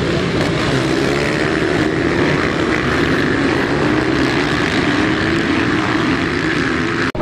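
A pack of motocross bikes racing off the start at full throttle: many engines revving high together, their overlapping notes rising and wavering as the riders accelerate and shift. The sound cuts off abruptly near the end.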